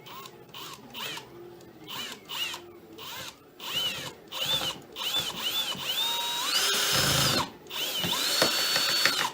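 Electric drill driving a self-tapping screw, run in a string of short spurts whose pitch rises as the motor spins up, then two longer runs near the end.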